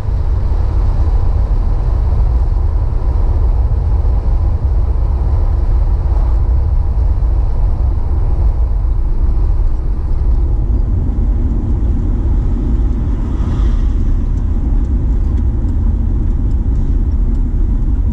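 Car engine and tyre noise heard from inside the cabin while driving on a wet road: a steady low rumble with tyre hiss. About ten seconds in, the hiss fades and the rumble changes tone.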